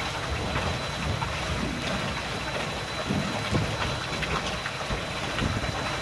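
Steady rushing noise aboard a pontoon boat under way: wind buffeting the microphone in uneven low rumbles, over the wash of water along the hull.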